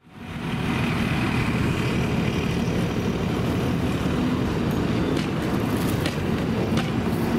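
A fire engine's diesel engine running steadily while pumping water to a hose line: a loud, even low rumble that fades in at the start, with a few faint sharp ticks in the second half.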